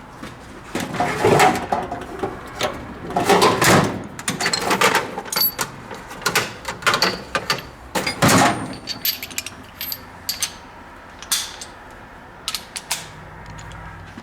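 Irregular knocks, clicks and rustling bursts, loudest about a second and a half in, near four seconds and near eight seconds, over a faint steady low background.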